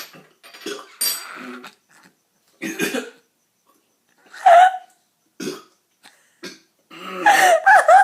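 A person coughing in a string of short separate bursts after swallowing a spoonful of stevia powder, with a longer vocal sound near the end.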